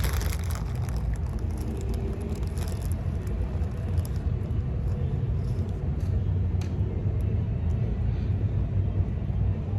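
Steady low rumble of a Holden Commodore running, heard from inside the cabin.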